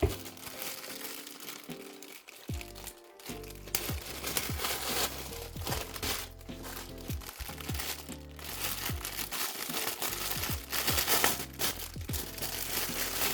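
Plastic packaging crinkling and crackling, with many sharp crackles, as items are unwrapped. Lo-fi background music with a beat plays under it.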